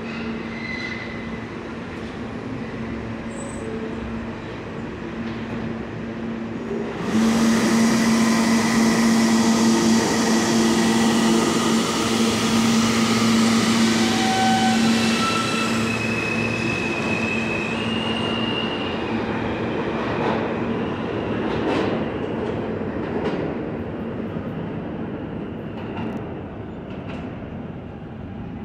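New York subway trains in an underground station. About seven seconds in, a train's noise suddenly swells loud, with screeching wheels for several seconds, then eases off. An R160 F train then pulls out, its wheels clicking over the rail joints as it leaves.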